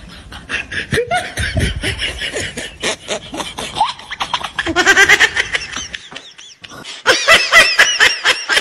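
People laughing, with a short lull and then a loud, rapid burst of laughter near the end.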